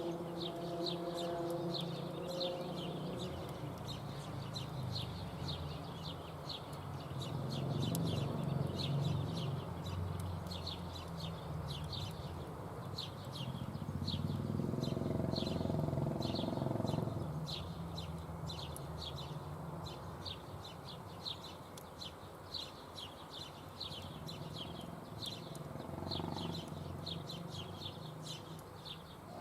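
Small birds chirping over and over in quick short notes, over a steady low rumble.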